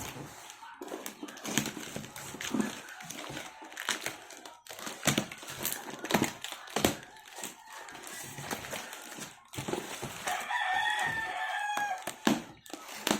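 Irregular clicks, taps and scrapes of a sealed cardboard package being handled and opened. About ten seconds in, a rooster crows once for about two seconds.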